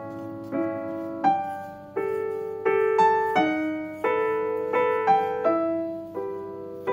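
Background piano music: a slow, gentle melody of single struck notes, each fading before the next, about one or two a second.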